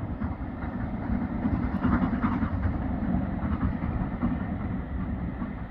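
Distant steam locomotive hauling a train of coaches along the valley line, heard as a steady low rumble.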